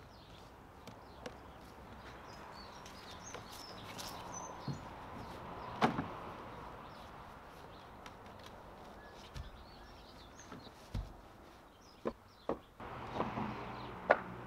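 Scattered wooden knocks and thumps of hardwood log sections being lifted out of a wheelbarrow and set down on the ground, the loudest about six seconds in and a quick cluster near the end. Faint bird chirps sound in the background.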